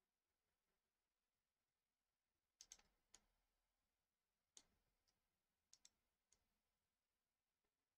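Faint clicks of a computer mouse and keyboard over near silence. There is a quick cluster of clicks a little under three seconds in, then single and paired clicks over the next few seconds.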